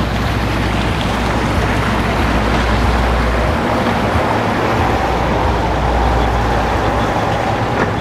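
Twin Mercury outboard motors running steadily as a center-console boat passes close by, with water churning in its wake.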